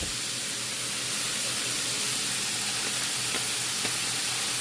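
Ground chuck sizzling steadily as it fries and browns in a pan, with a few faint ticks and pops.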